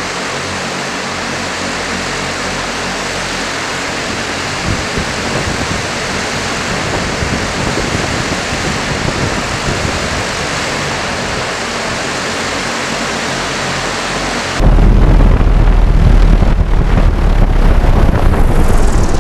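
Volocopter VC200's eighteen electric rotors running in hover: a steady, even whooshing noise with a faint low hum under it. About fifteen seconds in it cuts abruptly to a much louder low rumble with rough buffeting.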